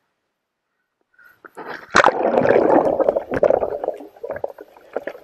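A kayak capsizing for an Eskimo roll: after a moment of quiet, water churns and gurgles loudly from about two seconds in, broken by sharp splashes, heard from a camera that has gone under the water with the upturned boat.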